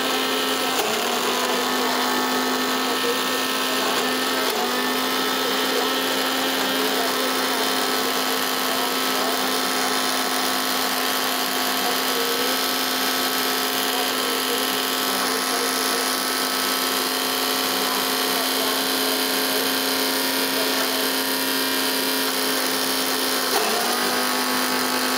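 Electric mixer grinder motor running steadily with a constant hum as it coarsely grinds soaked dal (lentils). Its pitch dips briefly three times: about a second in, around four and a half seconds in, and near the end.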